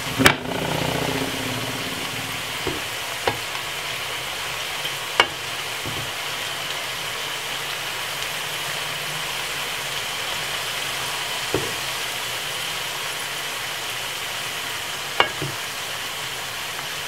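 Plantain slices frying in hot oil in a nonstick frying pan: a steady sizzle, broken by a few sharp clicks as the pieces are moved with metal tongs.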